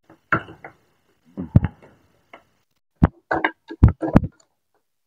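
A wooden spoon knocking in a stainless steel bowl, bruising shredded green papaya and carrot: about seven irregular knocks, coming closer together in the second half.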